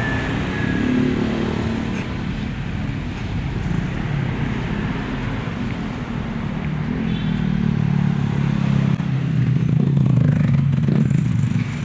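Road traffic passing close by: motor vehicle engines and tyre noise, growing louder in the second half as a vehicle passes near.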